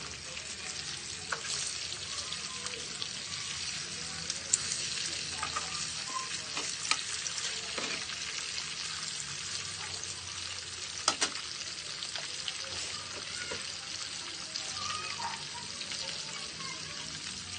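Pork chops sizzling as they cook: a steady frying hiss with a few sharp clicks scattered through it.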